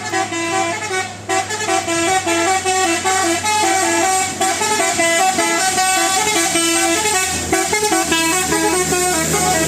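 Basuri-type telolet bus horn playing a quick melodic run of short, stepped notes at several pitches over a steady low hum.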